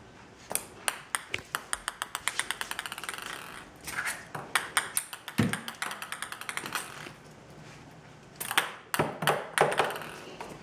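Plastic ping pong ball bouncing on a ceramic tile floor. A run of sharp ticks speeds up and fades as the ball settles, then two more runs of bounces follow as the puppy bats it about.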